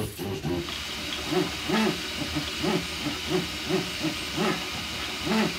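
Anet A8 3D printer running a print: its stepper motors whine up and down in pitch with each short back-and-forth move of the head, over the steady hiss of its cooling fans.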